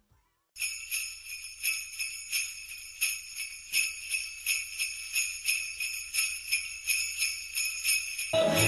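Jingle bells shaken in a steady rhythm, about three jingles a second, starting abruptly after a moment of silence.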